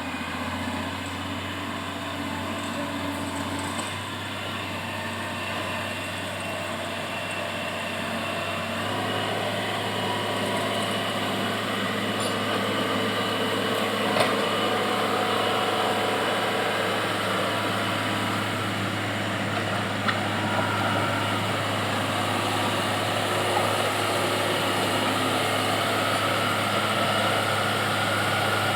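Komatsu GD511A motor grader's diesel engine running steadily, getting a little louder about a third of the way in, with a few short sharp knocks.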